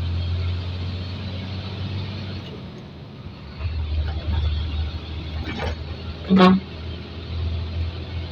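Hino truck's diesel engine droning steadily under way, heard from inside the cab, dropping off briefly about three seconds in. A short, loud horn blast sounds about six seconds in.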